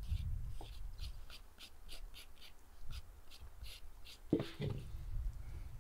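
Hand vegetable peeler scraping down a raw carrot in quick, even strokes, about three or four a second. Near the end a single knock with a short ring.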